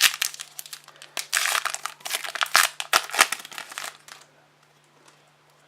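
Trading-card pack wrapper being torn open and crinkled by hand, a dense crackling that stops about four seconds in.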